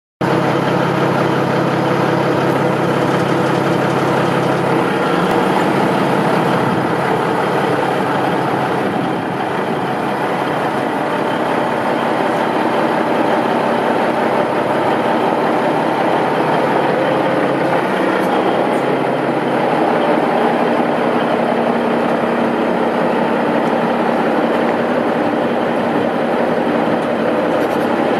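Diesel engine of a 1988 Peterbilt 357 tandem-axle rollback truck idling steadily.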